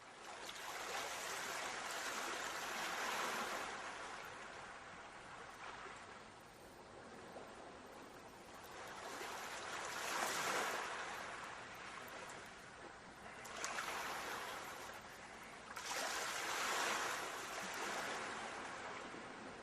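Sea waves washing onto a sandy beach, the surf swelling and falling back in long surges every few seconds.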